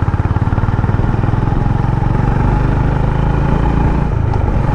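Honda motorcycle engine under way, heard from the rider's seat. It chugs at low revs with distinct firing pulses, then picks up into a steadier, rising note from about two seconds in, with a brief dip near the end.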